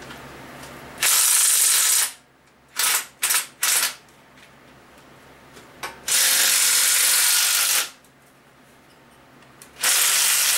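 A power tool running in three long bursts of about two seconds each, with three short trigger blips between them, as it works stubborn exhaust manifold bolts loose on an engine.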